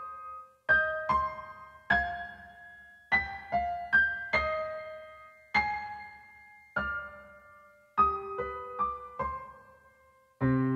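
Slow solo piano music: single notes and small clusters struck a second or so apart, each left to ring and fade, with short pauses between phrases. Near the end a fuller, lower chord comes in.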